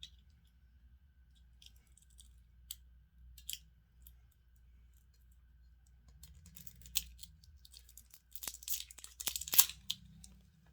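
Hands handling packaging and plastic parts, giving scattered clicks and crinkling rustles that grow busier about two-thirds of the way in, with a cluster of louder crackles near the end.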